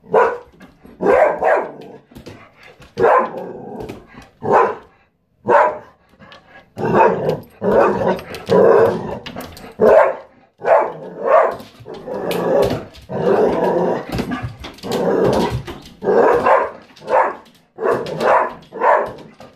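Standard Schnauzer barking loudly and repeatedly, in quick runs of barks, starting suddenly: alert, territorial barking at the postman outside.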